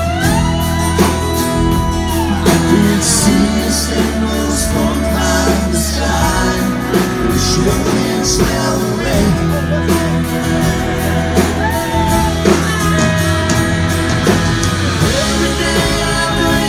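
Live country-rock band playing, heard loud through the hall's PA from the audience: drums with cymbals, guitars and a steady low end, with sliding lead lines.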